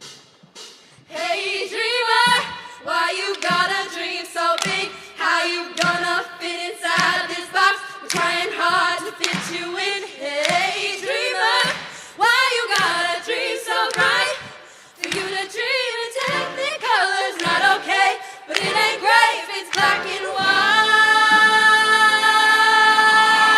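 Show choir singing in short phrases that start about a second in, ending on one long held chord.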